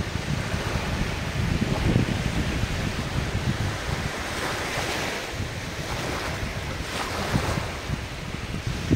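Ocean waves washing on the shore, with wind buffeting the microphone in gusty low rumbles. A wave swells up about halfway through.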